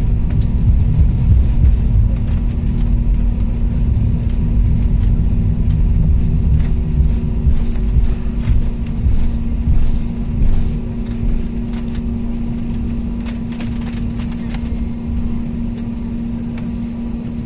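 Airliner rolling on the runway after landing: a steady low rumble with a constant hum and occasional light rattles, slowly easing off as the plane slows.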